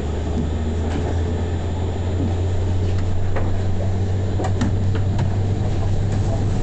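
Tram running along the track, heard from inside the car: a steady low hum of the motors and wheels, growing slightly louder, with a few faint clicks scattered through it.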